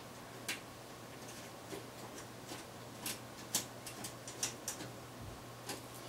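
Brass motherboard standoffs being screwed by hand into a PC case's motherboard tray: a run of small, irregular metallic clicks and ticks, thickest around the middle.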